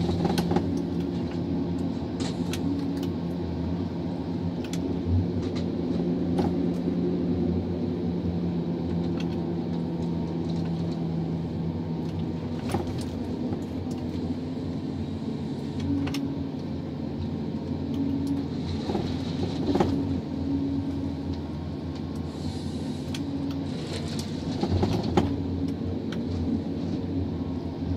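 John Deere 1270G forest harvester working, heard from inside its cab: the diesel engine and hydraulics run steadily under load. Scattered short knocks and clicks come from the H480 harvester head and boom handling the tree.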